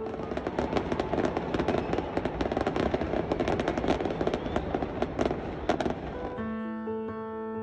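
Fireworks crackling and popping in a dense, rapid run of sharp cracks for about six seconds. Piano music comes back near the end.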